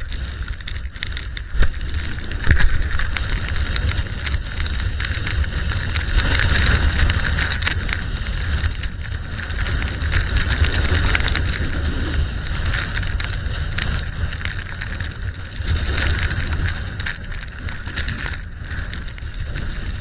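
Blizzard wind buffeting a skier-worn camera's microphone, over the steady hiss of skis running through deep powder snow. Two sharp knocks come about two seconds in.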